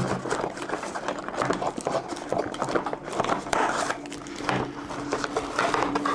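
Rustling and clicking of packaging and plastic parts being handled during unboxing, irregular and continuous.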